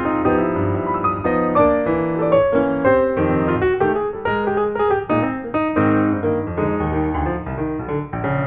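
Background piano music: a quick run of many short notes.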